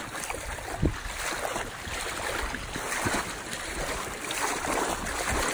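River water swishing and splashing around waders as people wade step by step through knee-deep current, with a dull thump just under a second in.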